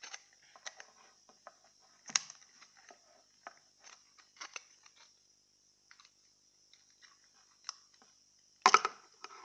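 Wire cutter snipping and the plastic base of a CFL clicking and cracking as it is pried apart to free its circuit board: scattered small clicks and snaps, a sharp crack about two seconds in, and the loudest burst of cracking shortly before the end.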